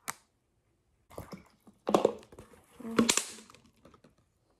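A water bottle being handled: a sharp click, then a few short knocks and rustles, the loudest about two and three seconds in.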